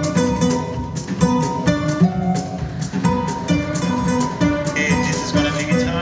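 Instrumental ensemble music: plucked strings and held melody notes over a steady beat.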